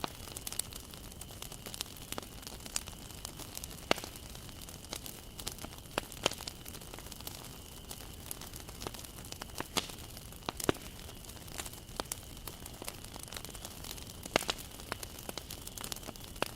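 Wood fire burning, with a steady low hiss and irregular sharp crackles and pops as the wood is consumed. A few pops stand out louder than the rest.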